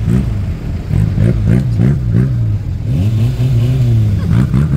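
Off-road vehicle engine revving in repeated short throttle bursts, its pitch rising and falling, with a steadier stretch about three seconds in before more revs near the end.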